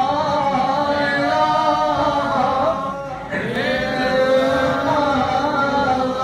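A male voice singing a slow, melodic chant with long held notes, pausing briefly about three seconds in before the next phrase begins.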